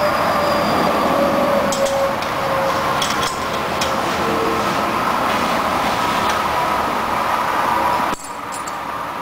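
Steady mechanical drone with a faint humming tone, from a running machine, with a few light metallic clicks of a wrench on a motorcycle's rear chain adjuster bolt in the first half. The drone drops abruptly in level about eight seconds in.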